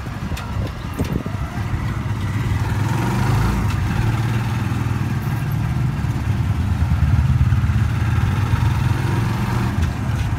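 Small motorcycle engine of a tricycle (motorcycle with sidecar) running steadily while riding along, heard from the sidecar as a continuous low hum.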